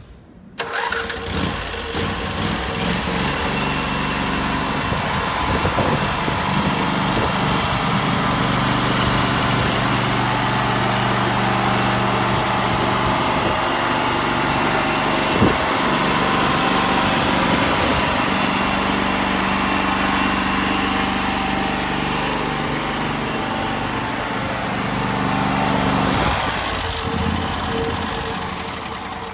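Hotsy 126C9 hot-water pressure washer running: a steady motor-and-pump hum under a wide rushing noise. The hum stops about three seconds before the end, and the rest fades down.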